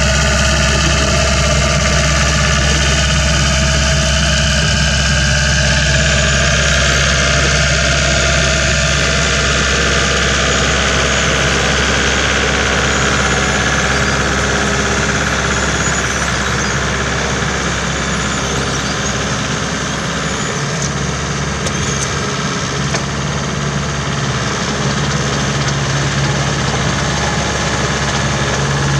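Tractor engine running steadily under load, driving a rear rotary tiller whose blades churn through the soil while a mounted seed drill sows wheat. A continuous, loud mechanical hum with a rough rattling layer over it.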